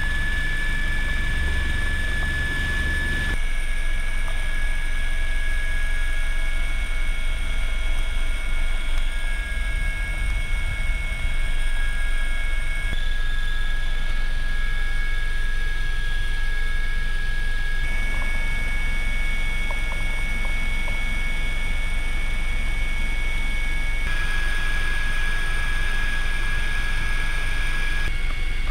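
Eurocopter UH-72A Lakota helicopter in flight, its twin turboshaft engines and rotor running steadily: a constant high whine over a low rumble. The whine's pitch and mix change abruptly a few times.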